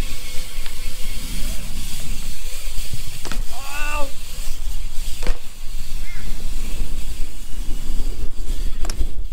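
Strong wind buffeting the microphone of a moving camera, over BMX tyres rolling on concrete. A sharp knock comes about three seconds in as the bike lands on a concrete ledge, and another about five seconds in, with a short shout between them.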